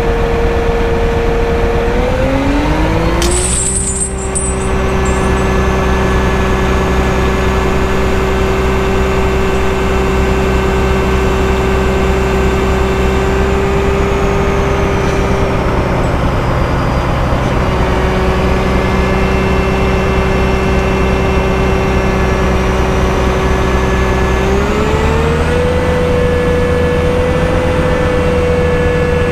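Wood chipper's engine running steadily; about three seconds in its speed drops with a sharp knock, and near the end it speeds back up again.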